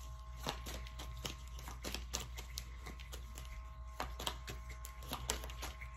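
Tarot cards being shuffled and drawn by hand: a string of soft, irregular clicks and flicks over a faint steady electrical hum.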